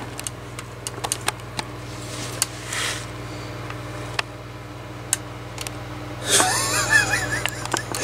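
Small clicks and taps of the plastic box-fan housing being handled, over a steady low hum. Late on comes a drawn-out, wavering, wheezy groan from a man, the loudest sound here.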